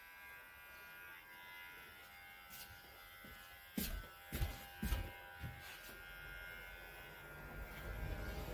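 Electric hair clippers running with a steady buzz during a haircut, with a few light clicks about halfway through.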